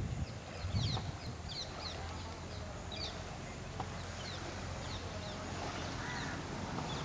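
Birds chirping in short, high notes scattered throughout, over a steady low rumble of wind on the microphone, with a couple of gusts in the first second.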